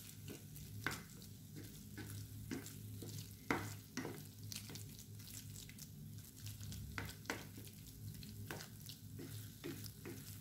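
Wooden spatula stirring and scraping spiced cauliflower zaalouk around a frying pan as it fries, with a faint sizzle. The scrapes come irregularly, one every second or two, over a low steady hum.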